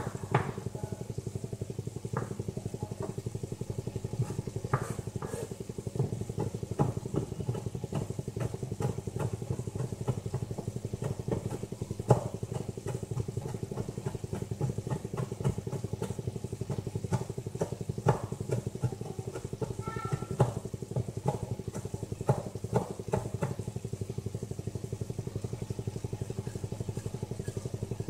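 A kitchen knife tapping on a chopping board at an irregular, unhurried pace while fresh herbs are chopped finely, over a steady low hum.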